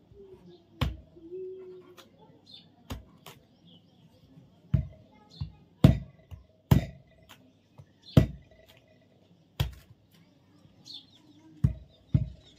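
A blade hacking into a fresh coconut, about ten sharp blows at an uneven pace. Birds chirp faintly in the background.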